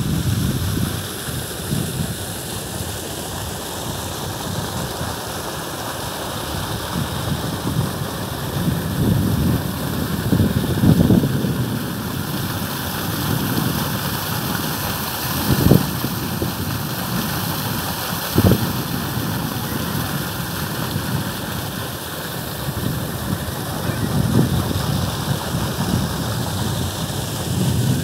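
Wind buffeting the microphone: a steady rushing with gusty low rumbles that swell and fade, and two short knocks about halfway through.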